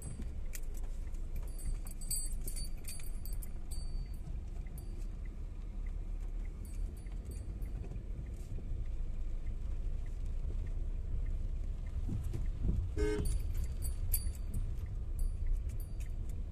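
Low, steady rumble of a Tata Zest's engine and tyres on a wet road, heard from inside the cabin, with scattered light ticks and clicks. A brief louder clatter comes about three-quarters of the way through.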